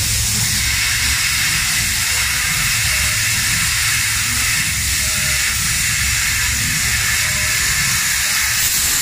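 Handheld plasma cutter cutting through 20 mm mild steel plate: the arc and air jet make a loud, steady hiss over a low hum.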